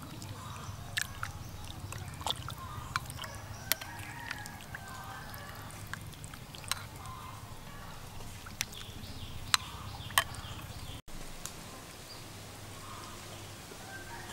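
A porcelain soup spoon clinking against ceramic and glass bowls as wonton soup is ladled out, a string of sharp clinks over the first ten seconds, with chickens clucking in the background.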